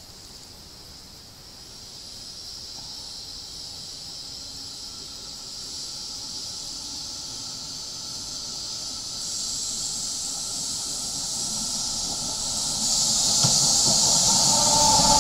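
1934 NESA tram no. 929 approaching along the track and passing close by: a steady hiss of running gear on the rails that grows louder as it nears. A whine of several tones and a low rumble are strongest as it goes past near the end.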